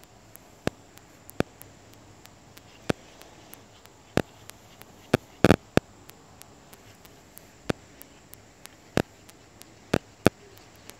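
A small spoon stirring a face-pack paste of powders and milk in a ceramic bowl, clicking against the bowl in sharp, irregular taps about once a second, with a quick cluster of taps about halfway through.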